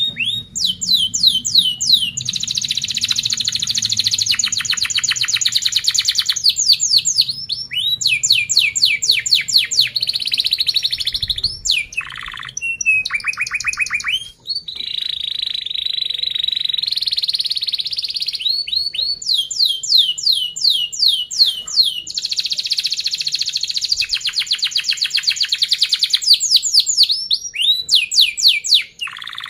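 Domestic canary singing a long, loud song: runs of quick down-slurred chirps alternating with tight, rapid rolling trills, with brief breaks about halfway through.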